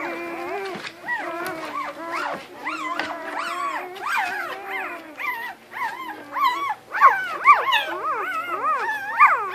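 Several newborn Catahoula–American Bulldog cross puppies crying and squealing together, in overlapping high whines that rise and fall in pitch, as they jostle to huddle against each other. The cries get louder and come thicker in the last few seconds.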